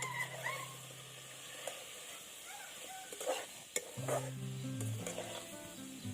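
Food sizzling in hot oil while being stirred and scraped with a utensil, with a few sharp clicks of metal on the pan about two-thirds of the way in.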